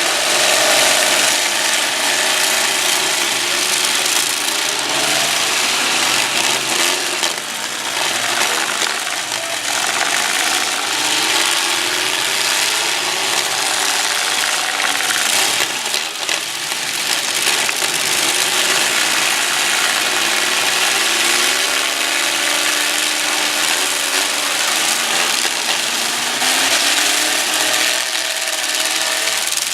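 Several demolition derby pickup trucks' engines revving up and down at once, loud and continuous, with grinding and scraping of metal as the trucks push against each other.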